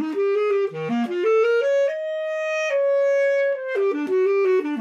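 Basset horn playing a solo phrase: a quick run of notes climbing upward, a long held note of nearly two seconds, then quick notes stepping back down.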